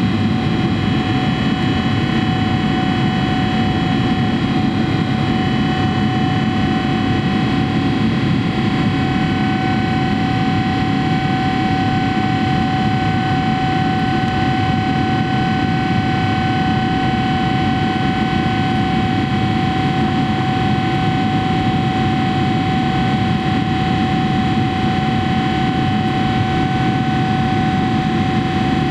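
Boeing 777-300ER in flight heard from inside the cabin beside its GE90-115B turbofan: a steady rush of engine and air noise with a steady high whine from the engine.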